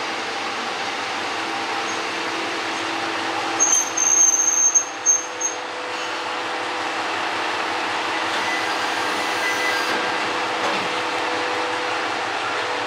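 MRT300-series diesel railcar's engine idling steadily while the train stands stopped. About four seconds in come several short, loud, high-pitched hissing squeals, typical of air being released from the brakes.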